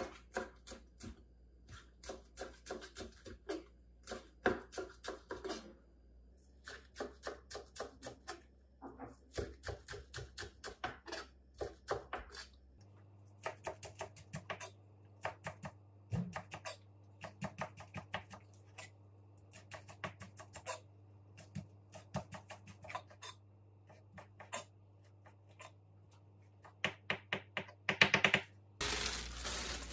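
Kitchen knife chopping green onions on an end-grain wooden cutting board: quick, even taps of the blade on the board, about three or four a second, in several runs with short pauses. Near the end a plastic bag crinkles.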